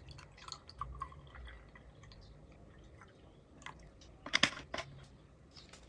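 Milk being poured into a glass mug, a faint low gurgle with small splashes and ticks over the first couple of seconds. About four seconds in comes a short cluster of sharp, crisp clicks, the loudest sound.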